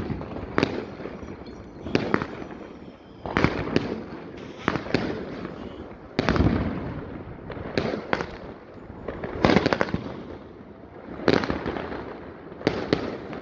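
Firecrackers and fireworks going off: about a dozen sharp bangs at irregular intervals, some in quick pairs, each with a short echo.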